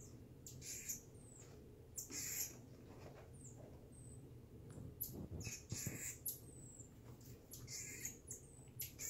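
Marmoset giving short, very high-pitched chirps, repeated several times.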